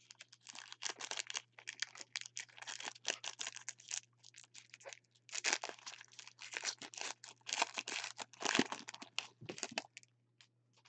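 Foil wrapper of a trading-card pack being torn open and crinkled by gloved hands, a dense run of crinkling that eases briefly about halfway through and stops about ten seconds in. A faint steady low hum runs underneath.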